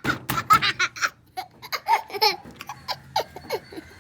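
Children laughing in a run of quick bursts, dying down into scattered short giggles and a few light clicks.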